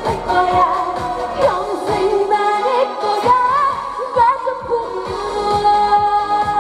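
Trot (Korean pop) song played loud through the stage sound system: a sung melody with wavering pitch over a backing track with a steady drum beat.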